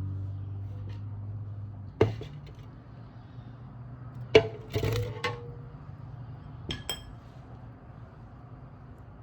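Glass and kitchenware clinking as they are handled: a knock, then a louder ringing clink with a brief rattle after it, and two light high-pitched clinks a couple of seconds later, over a low steady hum.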